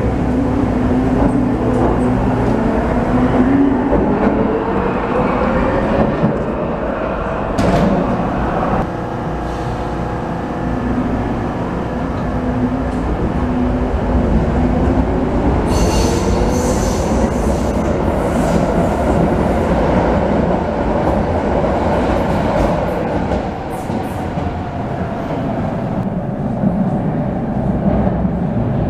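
Vienna U-Bahn metro train pulling out of an underground station: the traction motors' whine climbs in pitch as it accelerates, rising twice over the rumble of wheels on rail, with a brief high squeal about halfway through.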